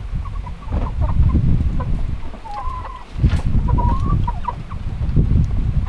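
A flock of chickens clucking, with short calls scattered throughout, the longest a little before the middle and again about two-thirds through. Under them runs a loud low rumble.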